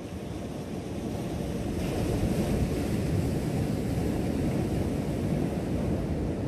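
Ocean surf washing against a rock shelf, with wind rumbling on the microphone; the wash swells louder about two seconds in.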